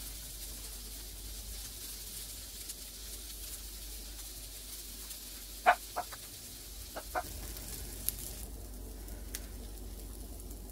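Slice of gyro meat searing in a hot skillet without oil, a faint steady sizzle. About six and seven seconds in, two pairs of short high-pitched calls stand out above it.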